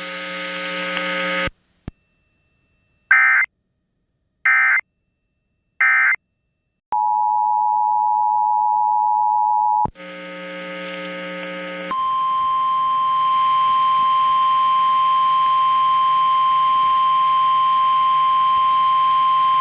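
Emergency Alert System tones: three short warbling digital data bursts about a second and a half apart (the end-of-message code), then the two-tone EAS attention signal held for about three seconds. After a brief stretch of radio hum comes the steady single-pitch NOAA Weather Radio alert tone.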